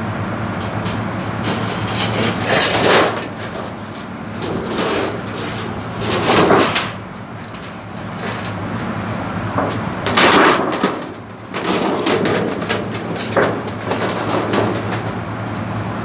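Thin metal cladding sheet rattling and buckling as it is handled and worked, in several loud bursts a few seconds apart. A steady low machinery hum runs underneath.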